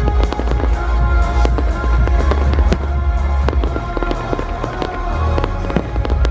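Fireworks display going off: many sharp bangs and crackles, several a second, over a continuous deep rumble, with music playing loudly alongside.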